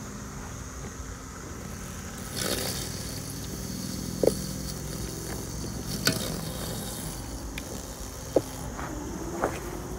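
RoboUP robotic lawn mower running as it mows the lawn: a steady low hum from its electric motors, with a few sharp clicks.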